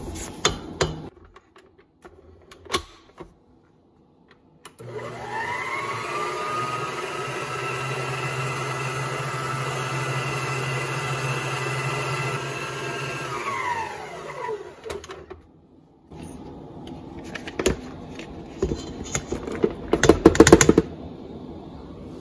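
Electric stand mixer with a wire whisk beating thick dough in a steel bowl, running steadily for about ten seconds. Its motor whine rises as it speeds up and falls away as it stops. A few knocks come before and after, with a louder clatter near the end.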